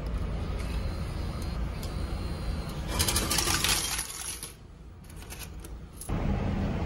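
Glory banknote change machine paying out coins, which clatter into its dispensing tray in a quick run of clinks lasting about a second, about three seconds in.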